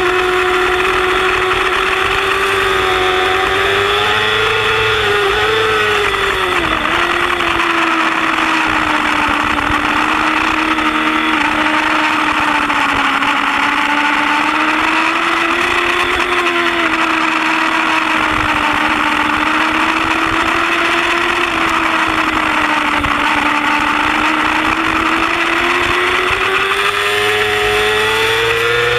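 Yamaha YZF-R6 inline-four engine at high revs, heard from an onboard camera at speed with wind rushing over the microphone. The engine note holds nearly steady, wobbles and dips briefly about five to seven seconds in, and climbs near the end.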